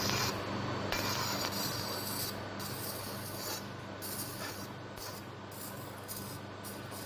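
Steady hiss over a low hum from operating-theatre equipment, fading slightly over a few seconds.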